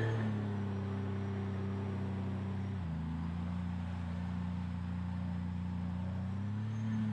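250-horsepower outboard jet motor of a Rock Proof River Rocket jet boat running steadily under way at moderate throttle. Its pitch drops slightly about three seconds in and rises again near the end.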